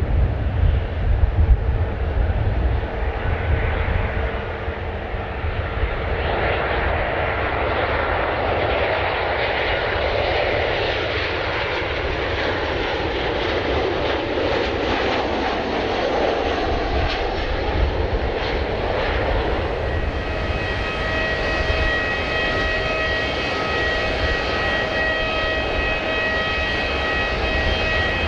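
Jet airliner engines running: a broad rushing noise over a low rumble. About two-thirds of the way in, a steady high-pitched engine whine of several tones joins in.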